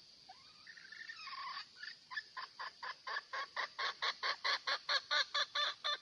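Red junglefowl hen calling: a short drawn-out call, then a fast run of clucks, about five a second, growing louder toward the end.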